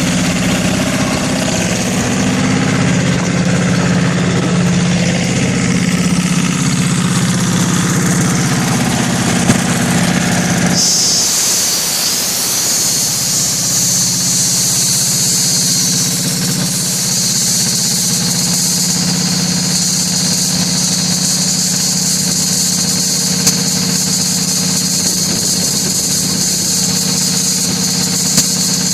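Kohler KD425-2 two-cylinder air-cooled diesel engine running steadily on an air compressor through a modified exhaust. About a third of the way in, a strong steady hiss sets in and the engine's low note drops back under it.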